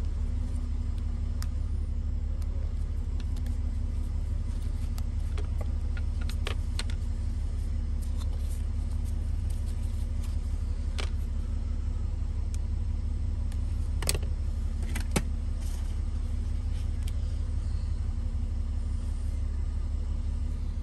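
Small clicks and taps of a plastic pry tool working against an iPhone logic board and its metal shield, with two sharper clicks about two-thirds of the way through. Under them runs a steady low hum.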